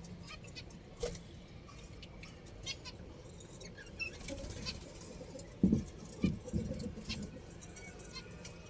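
Budgerigars chirping in short, scattered chirps, with a few louder, lower-pitched calls or knocks about six seconds in.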